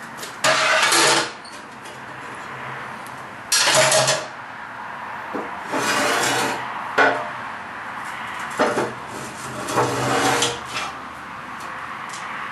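Electric arc welder laying a series of short tack welds: about six separate crackling bursts, each from a split second to about a second long, over a steady hum.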